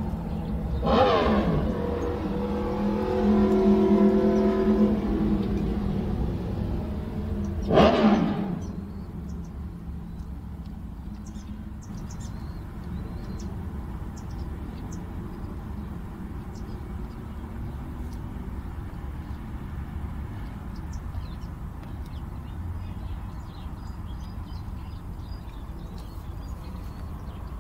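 Road traffic: a vehicle passes loudly in the first several seconds, its engine pitch sweeping down, holding a steady hum, then sweeping again about eight seconds in. A steady low traffic rumble follows.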